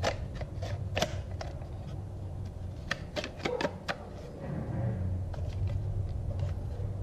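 Scattered plastic clicks and knocks as a Work Sharp knife sharpener's housing is handled and turned over, with a quick run of clicks about three to four seconds in.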